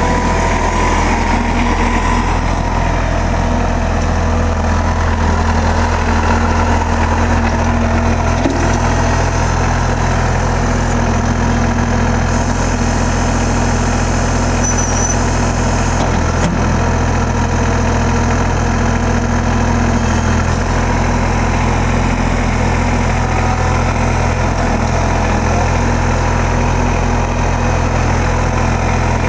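New Holland TC33D compact tractor's three-cylinder diesel engine running steadily while the tractor moves and its front loader is raised and lowered.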